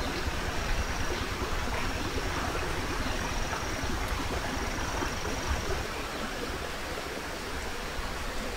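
Steady rushing of a forest stream over rocks, with a low rumble underneath and a faint thin high tone that comes and goes.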